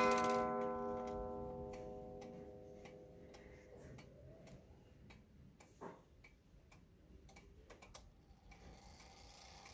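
Antique Thomas Haller wall clock's spiral gong struck once, ringing out in a rich chord of overtones that fades over about four seconds. Then the clock's movement ticking softly, with a short knock near the middle.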